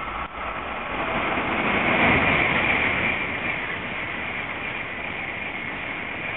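Shinkansen bullet train passing through at high speed: a rushing noise of air and wheels that builds over the first two seconds and then holds steady as the long train streams by.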